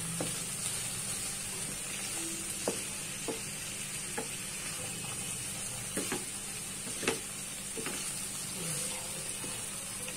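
Potato, cauliflower and tomato bhaji sizzling steadily in a pan as a wooden spatula stirs it. The spatula knocks against the pan in a few short clicks, the loudest about seven seconds in.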